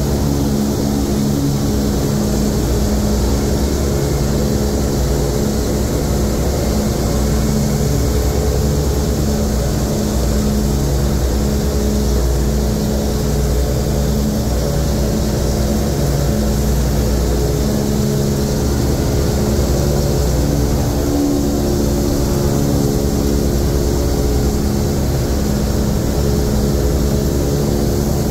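The B-29 Superfortress's four Wright R-3350 eighteen-cylinder radial engines and propellers running at takeoff power through the takeoff roll, liftoff and initial climb, heard from inside the glazed nose. It is a loud, steady drone with a deep rumble and several low tones that drift slightly against each other.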